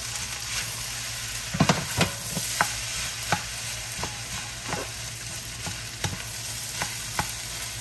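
Shrimp fried rice sizzling in a nonstick pan while a spatula stirs and folds it. Sharp taps and scrapes of the spatula on the pan come roughly every half second to second over the steady sizzle, the loudest a few quick knocks about one and a half to two seconds in.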